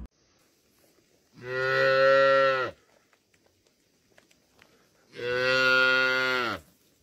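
Two long, low calls, each about a second and a half long and a few seconds apart, each holding a steady pitch and then dropping at its end.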